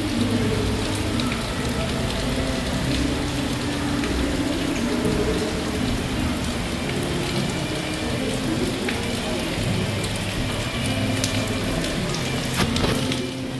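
Steady rain falling, with many individual drops ticking on a surface over a continuous hiss, and a low steady hum underneath.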